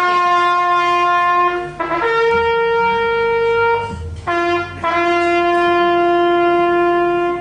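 A bugle call: five held notes, a long low note, a short one, a long note a step higher, then a short and a long low note. It is a ceremonial call announcing the solemn opening of an assembly.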